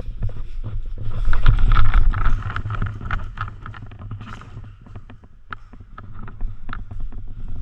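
Wind and handling rumble on an action camera's microphone, loudest about a second in, with scattered irregular clicks and knocks through the second half.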